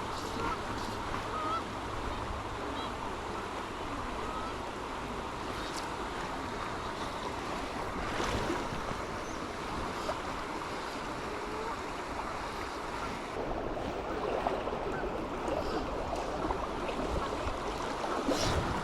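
Steady rushing of river water flowing over the shallows.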